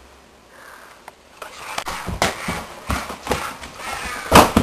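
Quiet at first, then irregular knocks, thumps and rustling as people move about, with a louder thump near the end.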